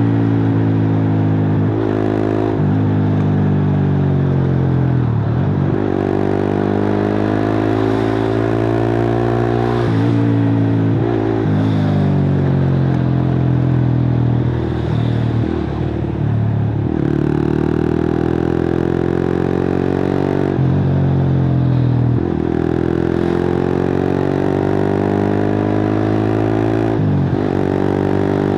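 Suzuki GSX-R150's single-cylinder engine through a cut-open exhaust, pulling up through the revs and dropping in pitch at each gear change, several times over, with a raw, open exhaust note.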